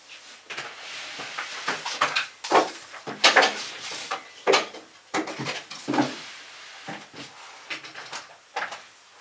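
Knocks, clatters and rustling of small objects being handled and set down, in a quick irregular series, loudest about two and a half to four and a half seconds in.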